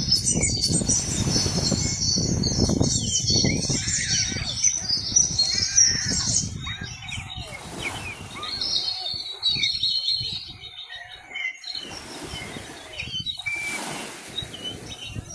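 Many small birds chirping and twittering together, busiest in the first half and again near the end, with a low rumble underneath for the first several seconds.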